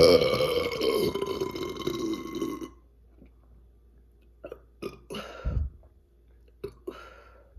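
A woman's long, loud burp from chugging Coca-Cola, lasting about two and a half seconds with its pitch sinking slightly, followed by a few faint clicks.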